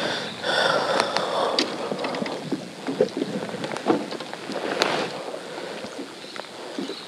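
Light clicks and knocks of fishing tackle being handled on a plastic kayak, over wind on the microphone.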